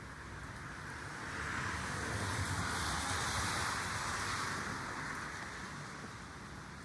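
A car passing on a wet road, its tyre hiss swelling from about a second in and fading away again over the next few seconds.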